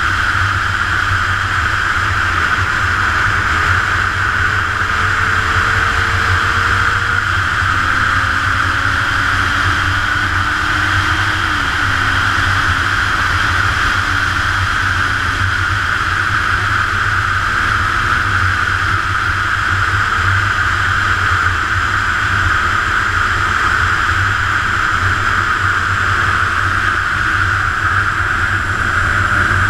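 Motorcycle cruising at highway speed, heard from a bike-mounted GoPro: a steady rush of wind over the microphone with a low engine drone underneath, holding even throughout with only slight slow shifts in engine pitch.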